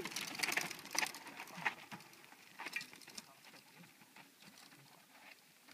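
A mountain bike and a running dog passing close over a rough trail: irregular crunching and clicking of tyres on stones and of paws, busiest in the first two seconds, then thinning to a faint rustle.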